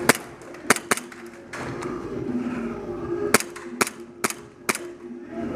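Airsoft guns firing single shots, about seven sharp cracks at irregular intervals: two close together near the start, then a pause, then four in about a second and a half.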